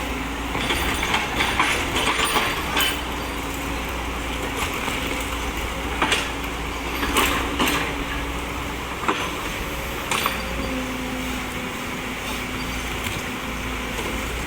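Excavator's diesel engine running steadily, with scattered sharp knocks and clinks over it several times.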